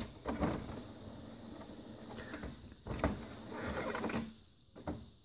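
HP OfficeJet Pro 8715 inkjet printer working through its printhead recovery level 3 service cycle, a routine run against blurry double printing: irregular mechanical clunks and short whirring runs from the printer's mechanism, thinning out and stopping near the end.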